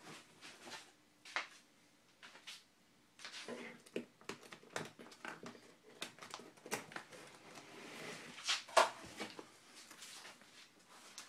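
Paper cookbooks and booklets being handled: irregular rustling and light taps as they are shuffled and set down. A sharper click comes about nine seconds in.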